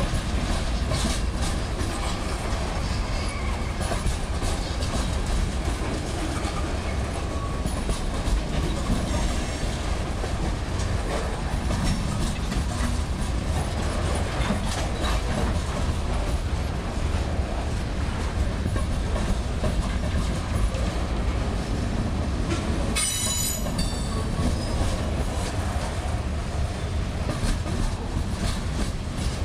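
Freight train of tank cars and covered hoppers rolling past at speed: a steady rumble with the wheels clicking over the rail joints, and a brief high-pitched wheel squeal late on.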